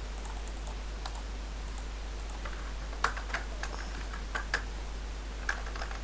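Computer keyboard typing: scattered, irregular keystrokes, with a few sharper key clicks in the second half.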